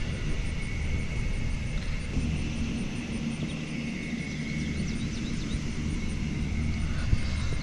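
Steady low rumble of outdoor background noise, with a faint steady high hum above it.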